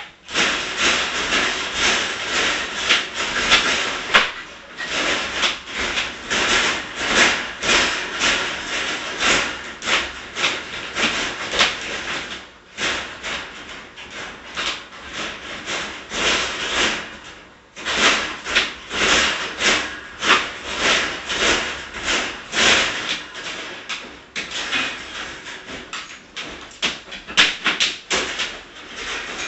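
Dog scratching and clawing at its enclosure: fast, rasping scratches and rubs in long runs, with short breaks about twelve and eighteen seconds in.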